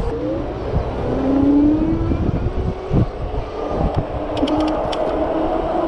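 Electric e-bike motor whining under power, its pitch rising about a second in and then holding steady, over heavy wind rush on the microphone from riding. A few light ticks come about four and a half seconds in.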